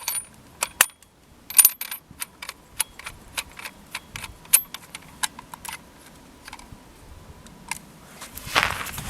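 Nemesis Arms Vanquish takedown rifle being reassembled: an irregular run of sharp metallic clicks and clinks, about two or three a second, from parts being fitted and locked together. Near the end the clicks give way to a louder rustling rush.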